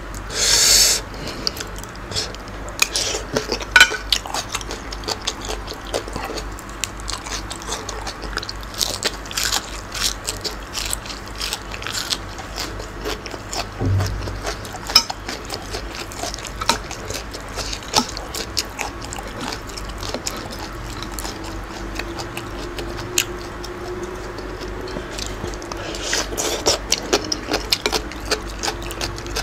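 Close-miked chewing of spicy squid salad with raw greens: many short crisp crunches and wet mouth clicks, with a brief hiss about a second in.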